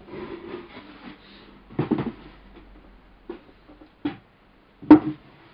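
Plastic model-kit sprues and their cardboard box being handled: a rustle, then several separate sharp clacks, the loudest near the end.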